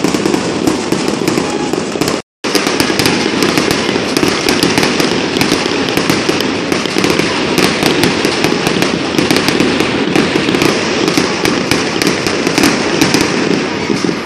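Ground fireworks fountains spraying sparks: a loud, dense, continuous crackling hiss made of many rapid small pops. The sound cuts out completely for a moment about two seconds in.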